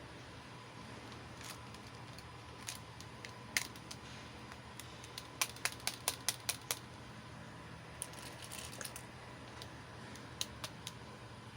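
Small hard plastic toy pieces clicking and tapping as they are handled and set down: scattered single clicks, with a quick run of about seven in the middle and a few more near the end.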